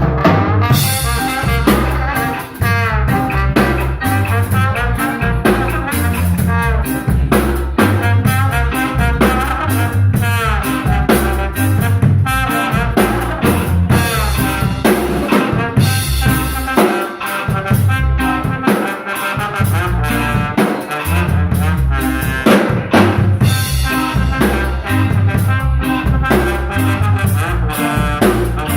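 Live instrumental band playing a tune with no vocals: drum kit and bass keep a steady groove under a wavering lead melody line.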